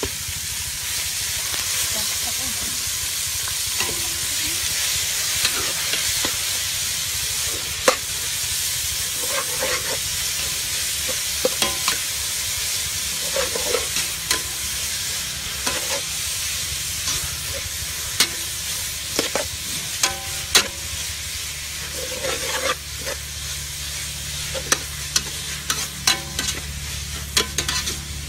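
Chopped pork sizzling in hot oil in a metal pot as it browns, stirred with a metal spatula that scrapes and clicks against the pot many times.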